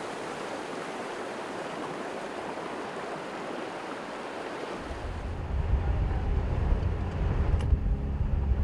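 River water rushing over rocks as a steady wash. About five seconds in it gives way to the low rumble of a vehicle's engine and tyres on a dirt road, heard from inside an open-topped car.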